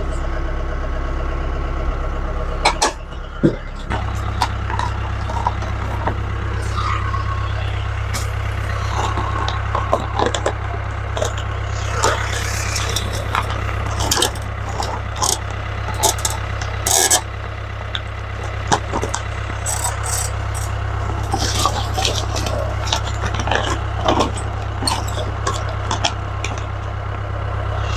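Mahindra 2638 tractor's diesel engine idling steadily, its note shifting about four seconds in, with scattered short clicks and knocks over it.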